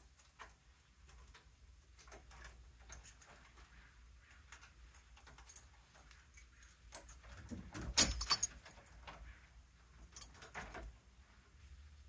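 A newly installed door knob lockset being locked and tried with its key: scattered small clicks and rattles of the knob, lock and latch, with a loud cluster of metal clicking about eight seconds in and a few more clicks near the end.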